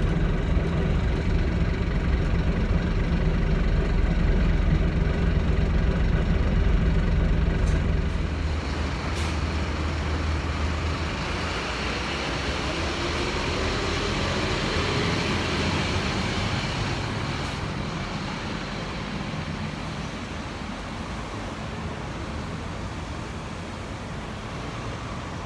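2007 Scania K230UB bus's diesel engine running steadily with a strong low hum, heard from inside the passenger cabin. About eight seconds in it is heard from the roadside instead: the bus pulls away from the stop with a rising engine note as it accelerates, then its sound slowly fades as it drives off.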